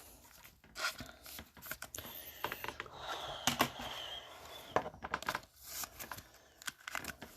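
Trading cards being handled: irregular light clicks and papery sliding as cards are flipped and moved through a pack.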